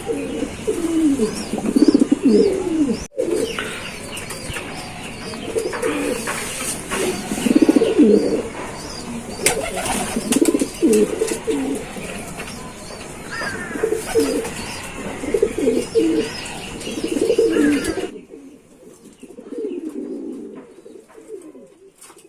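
Domestic pigeons cooing, one repeated low, throbbing coo phrase after another, growing fainter in the last few seconds.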